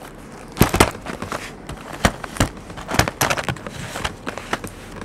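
Cardboard trading-card hobby boxes being set down and pushed together on a table: a string of irregular knocks and light taps as they are lined up and squared.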